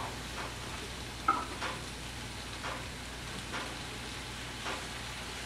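Cubed extra-firm tofu frying in coconut oil in a skillet: a soft, steady sizzle with a few faint pops and crackles.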